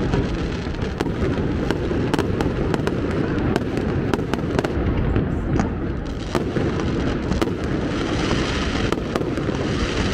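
Fireworks display: a constant low rumble of overlapping bursts, with many sharp crackles and pops throughout.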